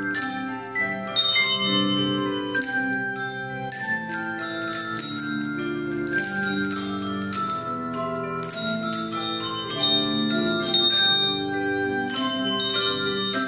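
A children's handbell choir playing a tune on small coloured handbells. The notes are rung one after another, each ringing on under the next.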